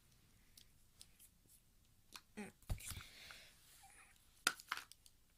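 Hairbrush and tape being handled against a hand: scattered faint clicks and rustles, with a soft thump a little before the middle and a few sharper clicks near the end.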